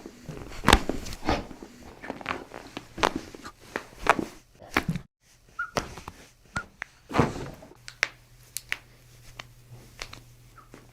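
Scattered, irregular thuds, knocks and clicks, the loudest about a second in and about seven seconds in; the sound cuts out briefly near the middle.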